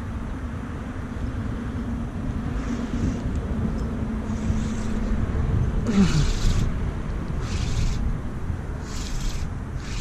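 Wind rumbling on the microphone under a steady distant engine hum, which drops in pitch about six seconds in. From then on come several short bursts of a fishing reel being cranked, with pauses between turns, as the lure is retrieved.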